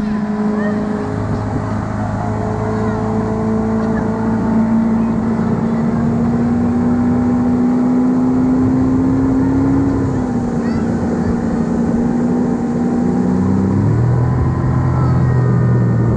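Boat engine running steadily, its pitch drifting slightly and shifting up and down about three-quarters of the way through.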